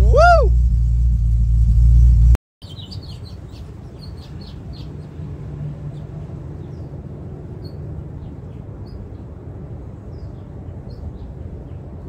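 Ford V8 engine idling steadily, with a brief rising-then-falling tone right at the start; the engine sound cuts off abruptly a little over two seconds in. After that, birds chirp over a faint low rumble.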